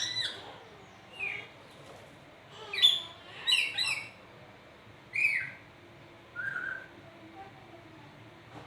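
Pet lory (nuri parrot) giving short, sharp chirping calls, about six separate bursts of quick sliding whistled notes with pauses between them.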